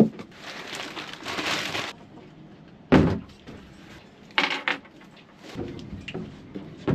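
Cardboard box and packing rustling as a battery is unpacked, then a single sharp knock about three seconds in as the battery is set down on a wooden table, followed by another brief rustle.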